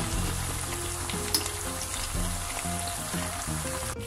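Batter-coated chicken pieces sizzling as they fry in hot oil in a pan, with a spatula stirring and turning them over, a couple of light clicks of the spatula against the pan. Soft background music with a slow melody sits underneath.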